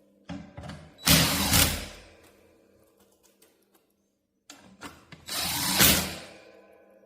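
Two loud mechanical bursts about four seconds apart, each lasting about a second and tailing off, with smaller clicks just before each, from tools and parts being worked while an industrial fan is assembled.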